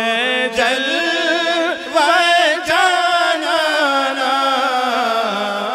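A man reciting an Urdu naat in a long, ornamented vocal line with no instruments, over a steady low held drone.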